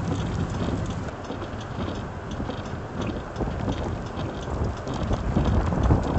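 Thunderstorm wind and rain noise: a steady low rumble with scattered light ticking, growing louder near the end.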